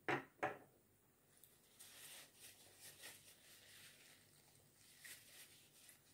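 A ceramic mug set down on its saucer: two quick, sharp clinks in the first half second. Then a paper napkin rustling and crinkling as it wipes the mouth.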